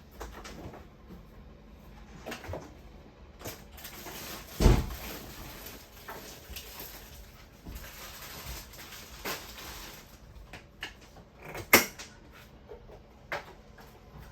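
Kitchen handling: scattered small knocks and clicks, like cupboards and utensils being moved while food is prepared. Two louder knocks stand out, one about five seconds in and one later on.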